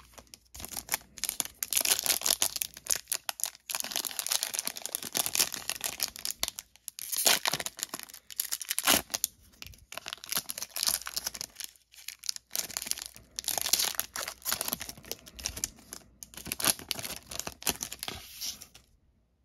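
Foil wrapper of a Panini Prizm football trading-card pack crinkling and tearing as it is handled and ripped open, on and off with short pauses.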